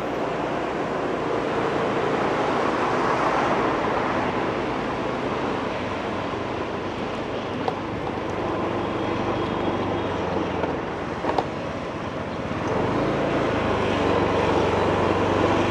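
A vehicle engine running steadily while on the move, with road and wind noise; it grows louder about 13 seconds in.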